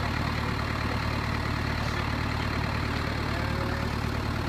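Land Rover Perentie's diesel engine idling steadily.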